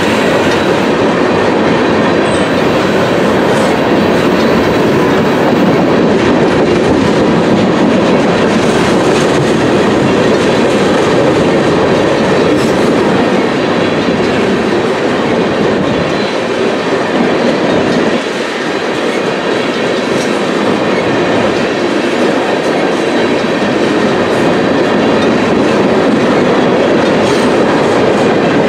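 Freight train tank cars rolling past close by: the steady, loud rumble and clatter of steel wheels on the rails.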